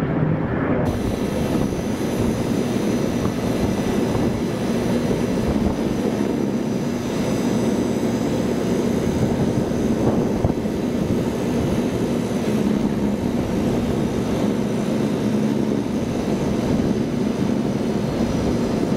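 Airliner engines running steadily: a continuous rumble, joined about a second in by a high whine.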